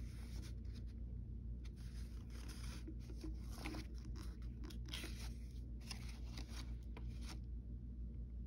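Paper rustling and crackling as the pages of a printed instruction booklet are handled and turned, over a low steady hum.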